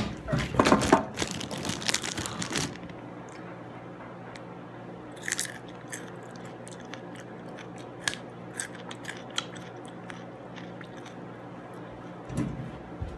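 Crunchy food bitten and chewed close to the microphone: a run of loud crunches for the first two and a half seconds, then occasional softer crunches and mouth clicks.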